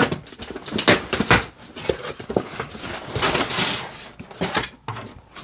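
A hamper box being opened and its packaging handled: irregular rustling with scattered knocks and scrapes, loudest a little past the middle.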